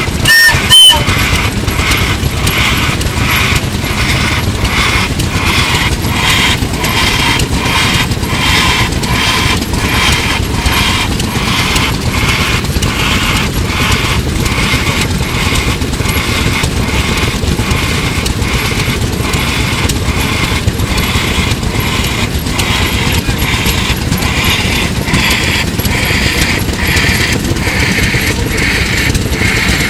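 Houston Stanwood & Gamble horizontal steam engine running steadily, its exhaust steam puffing in an even beat while steam hisses off around it. A brief whistle blast sounds less than a second in.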